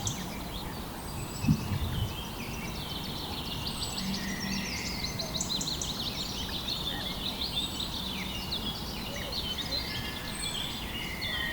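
Several birds chirping and trilling at once, many short rapid calls overlapping, over a steady outdoor background noise. A single low thump sounds about a second and a half in.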